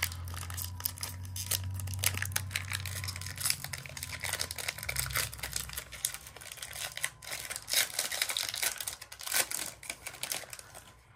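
Foil wrapper of a Pokémon TCG Brilliant Stars booster pack being torn open and crinkled by hand, a dense run of irregular crackles and rips that thins out near the end.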